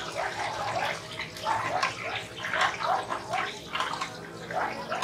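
Loud roadside din: a steady low hum under a dense jumble of short, wavering sounds.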